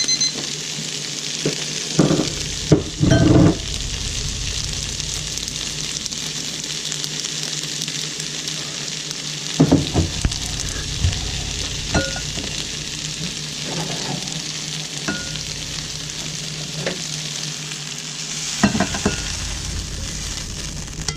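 Food frying in a hot pan with a steady sizzle. A few knocks and clatters of a utensil against the pan come through it, most around two to three seconds in and again near ten and nineteen seconds.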